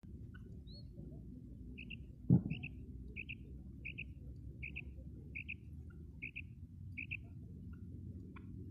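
Female quail calling: a short double note repeated about eight times, roughly every three-quarters of a second. A single loud thump comes a little over two seconds in, over a steady low rumble.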